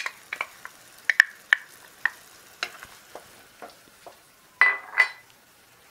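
Wooden spoon tapping and scraping against a can of tomato sauce and a cooking pot as the sauce is scraped in and stirred: a run of irregular sharp clicks and taps, loudest about a second in and near the end.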